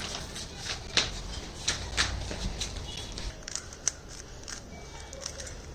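Rubik's cubes being twisted by hand: irregular plastic clicking and clacking of the layers turning, several clicks a second.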